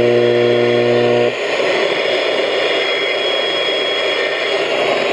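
Radio receiver static: a steady low buzz with overtones cuts off just over a second in, leaving a steady hiss with no programme audio.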